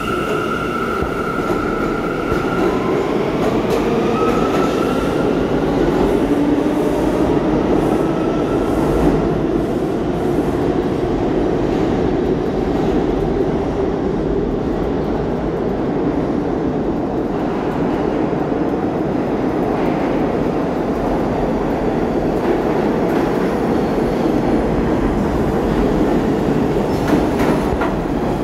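New York City subway trains, R179 and R46 cars, running through an underground station with a steady loud rumble of steel wheels on rail. High wheel squeal sounds in the first two seconds and fades. Wheels clack over rail joints near the end as an R46 train passes close by.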